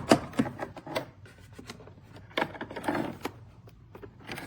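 Hand tools being handled: two quick runs of clicks and clacks, one at the start and another a couple of seconds in.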